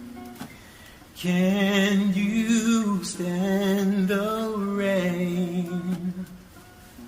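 A wordless vocal line, a voice humming or singing held notes with vibrato. It comes in about a second in and fades out near the end.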